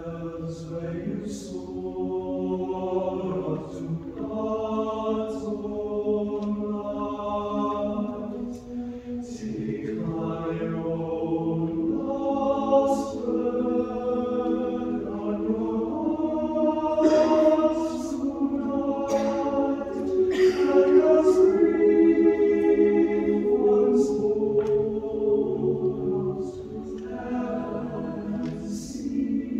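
Mixed chamber choir singing a cappella in slow, sustained chords, with crisp "s" consonants. It swells to its loudest past the middle, then eases back near the end.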